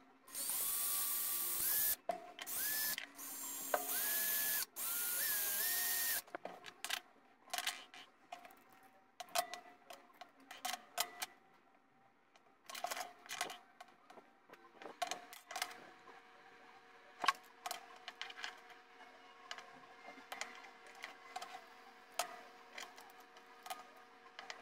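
A small power drill boring holes into raccoon bone in about five short bursts over the first six seconds, its motor whine stepping up in pitch as it speeds up. After that, light clicks and taps as the drilled bone and pins are handled and fitted.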